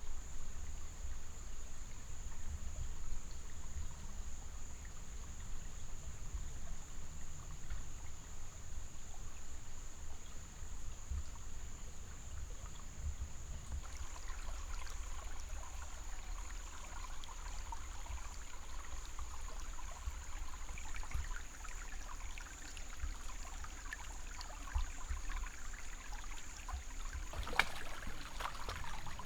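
Water trickling, over a low rumble and a steady high hiss. The trickle turns more crackly about halfway through, with a few sharp clicks near the end.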